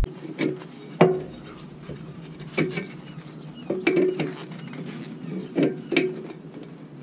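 Metal jack handle clinking and knocking against a jack under the axle as it is worked, in about seven irregular knocks, each with a brief ring.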